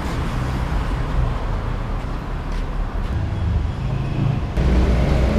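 Street traffic: a motor vehicle's engine running steadily under general road noise. The sound changes abruptly near the end.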